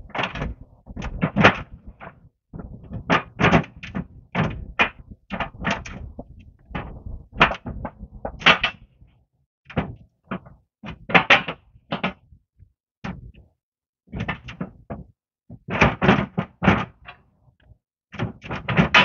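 Irregular metal clunks and knocks from tools and steel parts being handled while working on a snowplow blade, a few sharp knocks every couple of seconds with short pauses between.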